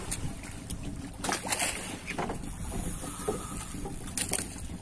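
Small fishing boat's engine idling as a steady low rumble, with wind on the microphone and a few short hissing rushes about a second and a half in and near the end.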